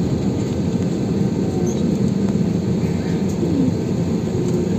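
Steady low rumble of an airliner taxiing, heard from inside the passenger cabin.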